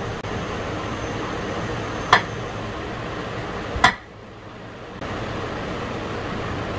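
Steady background noise with two sharp clinks, about two and four seconds in, as chicken is worked in flour on a china plate. The steady noise dips for about a second after the second clink.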